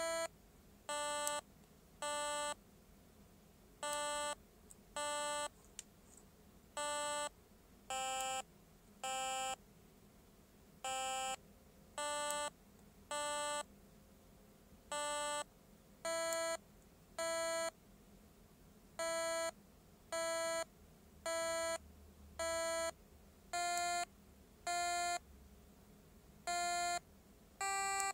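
A BBC micro:bit playing a tune of short electronic beep notes, each about half a second long, jumping between several pitches at roughly one note a second, with a few slightly longer pauses.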